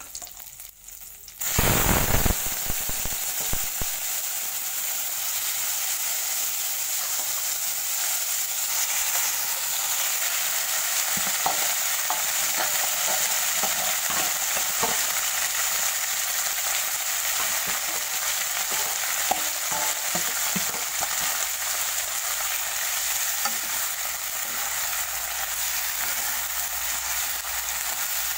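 Curry leaves frying quietly in hot oil in a wok. About a second and a half in, a loud burst of sizzling as sliced bitter gourd (karela) with onion and chilli goes into the oil, then a steady sizzle while it fries and is stirred with a spatula.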